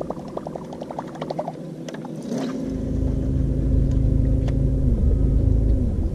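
A fast, light ticking for the first second and a half. About two seconds in, the boat's bow-mounted electric trolling motor starts up: a low hum with a steady whine above it that dips briefly and picks back up near the end.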